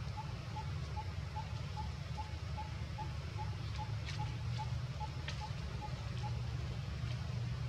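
Outdoor background with a steady low rumble and a faint mid-pitched note repeated evenly about two and a half times a second, which stops near the end. A few short high chirps come in the second half.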